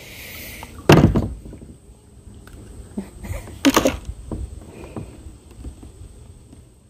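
Knocks and thumps against a kayak as a hooked largemouth bass is brought in and landed by hand. There is one loud thump about a second in, a sharp knock near the middle and a few lighter knocks after it, and then the sound fades out.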